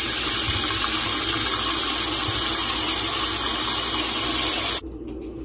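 Kitchen sink tap running hot water in a steady stream onto raw steak in a bowl, filling the bowl; the water is shut off abruptly near the end.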